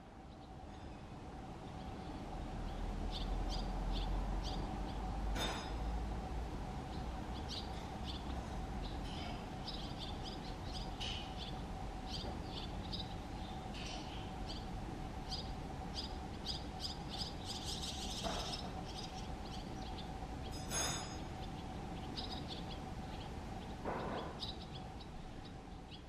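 Barn swallow fledglings begging: short, high chirps in quick, irregular runs, over a steady low hum.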